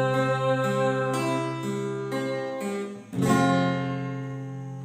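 Acoustic guitar accompaniment in a short gap between sung lines, with chords ringing over a steady bass and a new chord struck about three seconds in.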